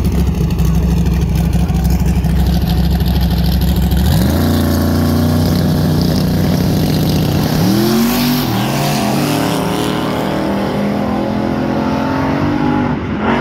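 Drag-racing engines running at the starting line, then climbing in pitch through the gears as the cars launch a little past halfway through and pull away down the strip.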